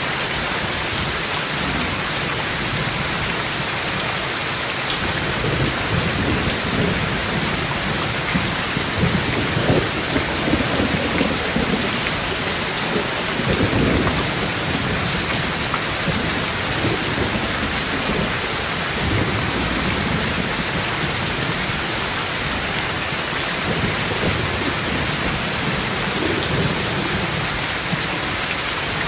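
Steady rain with low rolling thunder rumbling in several long swells, loudest about a third of the way in.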